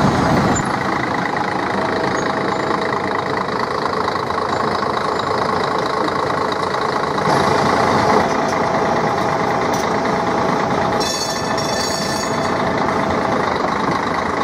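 Siemens Combino articulated electric tram running slowly past a historic Lisbon tram, a steady mechanical and electrical hum mixed with street traffic noise. About eleven seconds in comes a brief high-pitched squeal.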